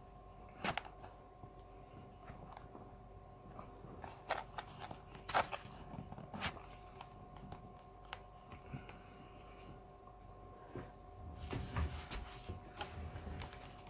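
Handling noise from mounting a phone on a small drone with straps: scattered clicks and knocks, with a rubbing, rustling noise near the end. A faint steady hum lies under it.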